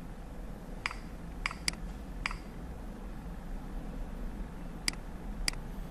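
Six short, sharp computer mouse clicks, spaced irregularly over a steady low room hum: slides being selected in a presentation.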